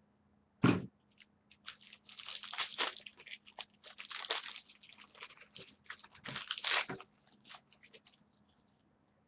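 A sharp thump, then several seconds of crinkling and crackling as the wrapper of a hockey card pack is torn open.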